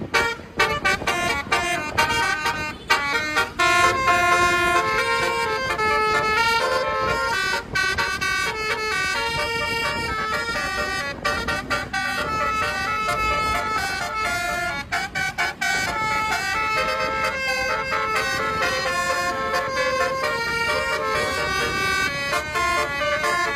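Bus basuri horn, a multi-tone "telolet" air horn, playing a melody as a long run of stepped notes.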